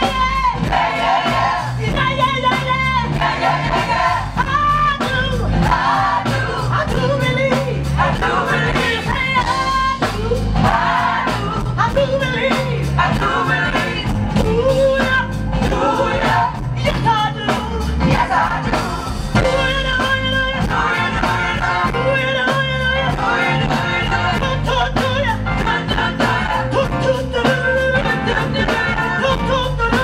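Live gospel music: a female lead singer with a choir backing her over a band with a steady beat.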